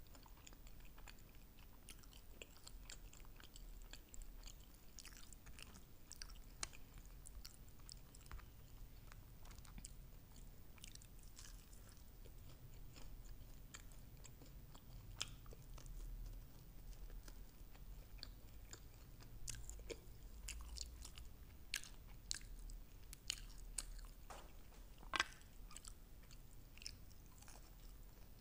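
Close-miked mouth sounds of a person chewing sauce-covered fried chicken wings: quiet, steady chewing with scattered soft crunches and wet clicks. A sharper click comes about three-quarters of the way through.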